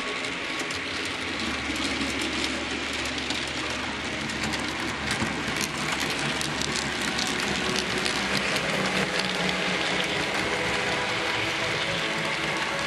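HO-scale model train running past on its track: a steady clicking, rattling wheel noise with a low motor hum that sets in about a second and a half in as the locomotive approaches.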